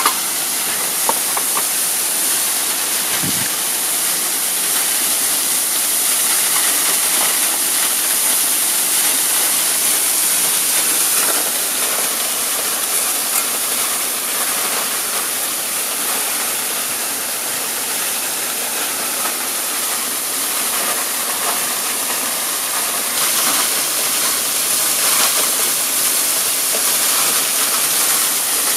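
Waterfall rushing steadily: an even, bright hiss of falling water.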